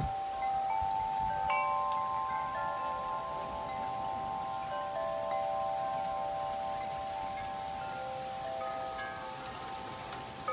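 Metal tube wind chime ringing in storm wind, with fresh strikes about a second and a half in whose tones ring on for several seconds, over a steady hiss of rain.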